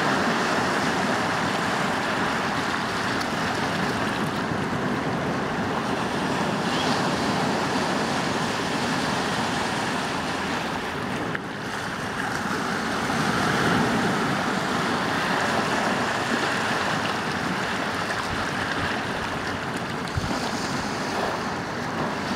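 Ocean surf breaking and washing up a shallow beach: a steady rush of water that swells a little as waves come in about halfway through.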